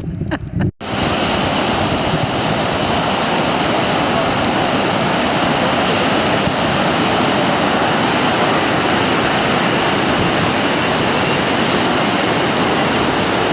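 Ocean surf on the beach: a steady, loud wash of breaking waves, starting after a short break about a second in.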